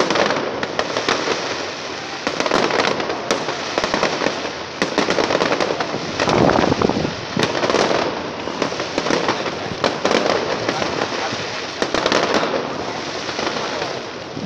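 Fireworks display going off continuously: a dense run of sharp bangs and crackling bursts, one on top of another.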